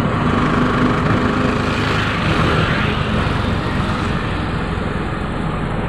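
A moving road vehicle, heard from on board: its engine runs steadily under a constant hiss of tyres and wind.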